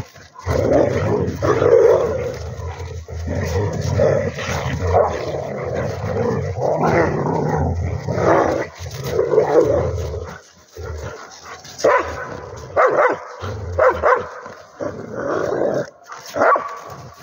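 Several dogs play-fighting, growling and barking in irregular bursts as they wrestle.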